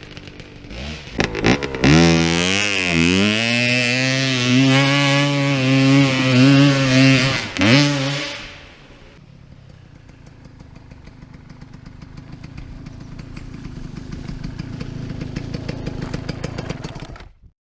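Enduro motorcycle engine revving, its pitch dipping and rising as the throttle changes. About eight seconds in it falls away to a quieter engine note that slowly builds, then cuts off abruptly near the end.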